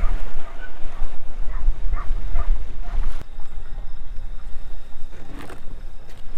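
Strong wind buffeting the microphone aboard an inflatable boat, a dense low rumble, with a couple of sharp knocks near the end.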